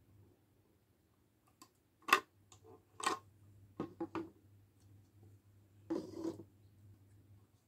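Hard plastic toy bed frames knocking and clicking as they are handled and set down on a wooden table: one sharp knock about two seconds in, a few lighter clicks after it, and a short scrape a little before the end.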